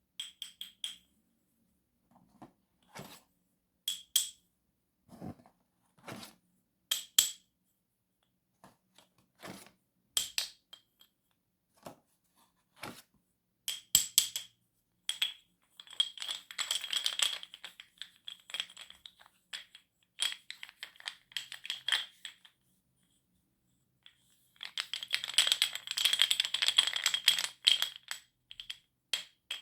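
Chalk tapped against a hard surface: scattered sharp taps, each with a short clinking ring, then two stretches of rapid scratchy tapping, one around the middle and one near the end.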